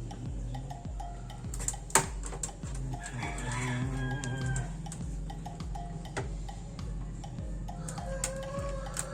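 Music with a steady beat, about two thumps a second, played through the LED TV's speaker during a sound test. A chicken- or rooster-like call sounds over it twice, once a few seconds in and again near the end.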